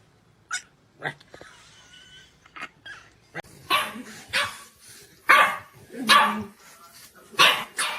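Dog barking repeatedly: a few faint sounds, then about six loud, sharp barks in the second half.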